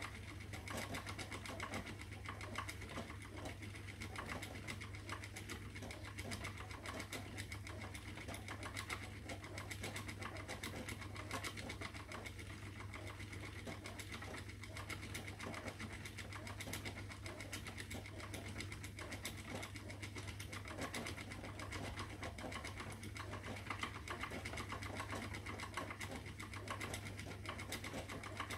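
Spinning wheel running steadily while plying yarn: a continuous low hum with fast, even ticking from the moving parts.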